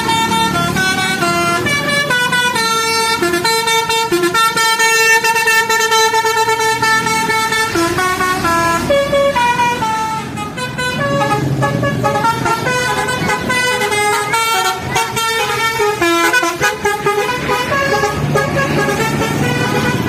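Tour buses' "telolet basuri" musical horns playing a tune of quick, stepped notes, one bus after another, over the rumble of passing traffic.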